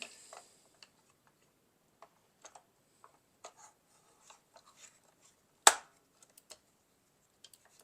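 Small plastic clicks and scrapes of a Roomba i7's replacement drive wheel module being fitted into the chassis, with one sharp snap a little past halfway through.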